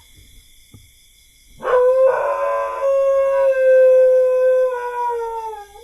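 A dog howling: one long howl starting about a second and a half in, held on a steady pitch and sliding down near the end.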